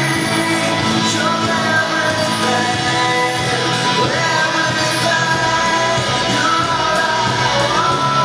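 Rock song with singing over guitars and drums, playing steadily as the backing track for a mime performance.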